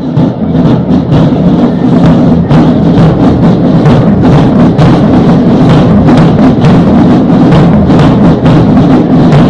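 Loud percussion-driven music with a steady drum beat.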